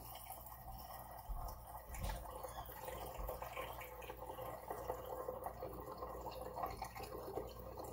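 A thin stream of cold brew coffee pouring from a French press into coffee already in a glass flask: a faint, steady trickle and splash.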